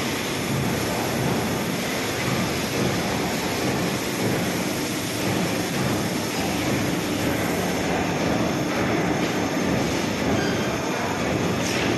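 Steady machine noise from a running Amada EML Z3510NT CNC punch press line, an even whirring rush with no distinct punch strokes; a faint steady hum comes in about halfway through.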